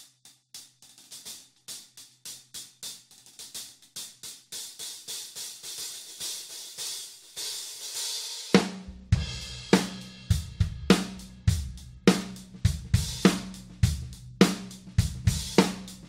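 Dream Cymbals 16-inch Energy and 16-inch Bliss hi-hat pair struck with a drumstick: separate tight strokes at first, then a continuous washy sizzle from about four seconds in. About halfway through, a kick drum and snare join in a steady beat, the snare landing about once a second.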